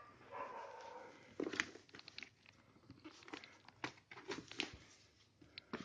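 A motorcycle helmet being lifted out of its cloth bag and handled: bag rustling with a string of sharp clicks and knocks, the loudest about a second and a half in.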